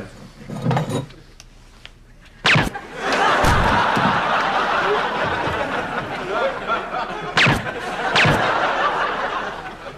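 A single gunshot bang about two and a half seconds in, followed by audience laughter that carries on through most of the rest, broken by a few sharp knocks.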